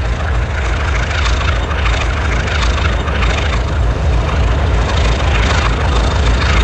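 Diesel locomotive running, a loud steady low rumble.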